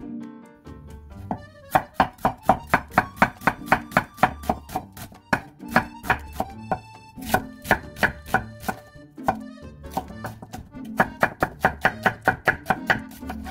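Chef's knife slicing an onion on a wooden cutting board: quick, regular knocks of the blade on the board, about four a second, starting about two seconds in and coming in several runs with short pauses.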